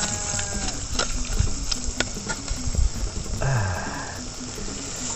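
A steady chorus of crickets chirping, with scattered sharp clicks and taps. A brief noisy sound with a low falling tone comes about three and a half seconds in.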